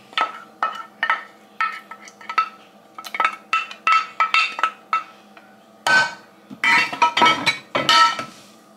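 A utensil scraping and knocking against a glass baking dish in a quick run of short strokes, with a busier cluster near the end, as food is scraped out of one glass dish into another.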